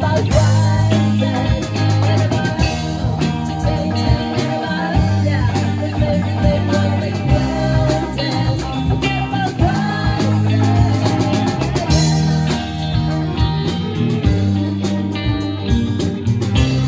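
Live band playing a song: guitar and drum kit with singing.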